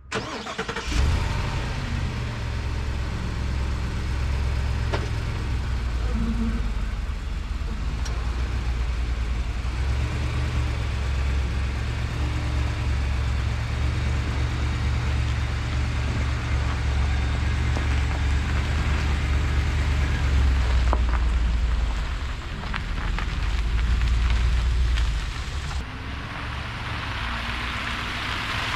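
A truck engine starts and then runs steadily, its low rumble swelling and easing several times as it drives off.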